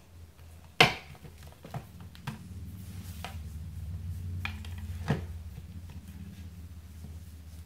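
Plastic doll and toy horse being handled: one sharp knock about a second in, then several lighter clicks and taps, over a low steady hum.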